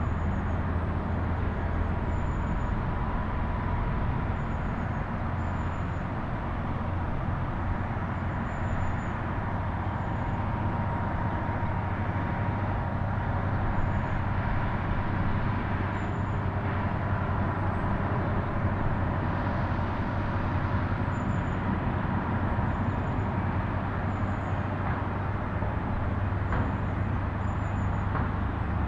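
A steady low mechanical drone with a faint steady whine above it, unchanging throughout.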